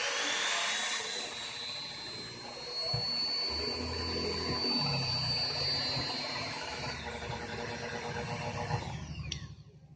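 Dremel 3000 rotary tool's motor running with a high whine. Its pitch drops slightly about seven seconds in, then it winds down with a falling whine and stops about a second before the end, with low knocks underneath.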